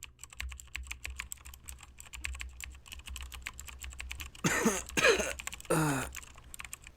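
Computer keyboard typing, a quick run of key clicks that stops about four seconds in; then a man coughs three times.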